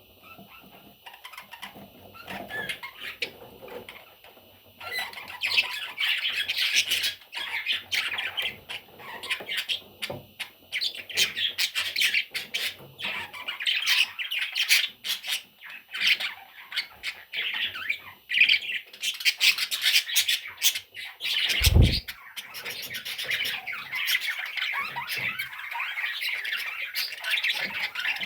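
Budgerigar chicks chirping and squawking in a dense, continuous chatter that grows louder about five seconds in. A single dull thump sounds a little past the three-quarter mark.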